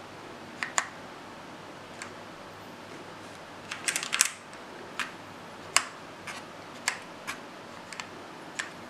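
Keys on a Rapoo KX mechanical keyboard being pressed one at a time, making sharp separate clicks with a quick run of several about four seconds in, as the LED brightness is stepped through its levels.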